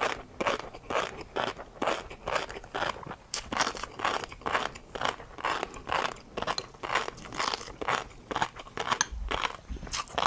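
Close-miked mouth chewing tobiko (flying fish roe) with a crunchy topping: steady, rhythmic crunching and crackling, a few strokes a second.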